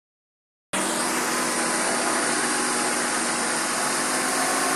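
Motor vehicle engine running steadily at an even pitch, cutting in after a moment of silence at the very start.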